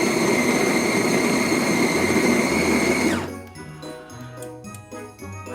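Siroca Cafe-bako PRO coffee maker's built-in bean grinder running with a steady high whine, then winding down and stopping about three seconds in. Light background music follows.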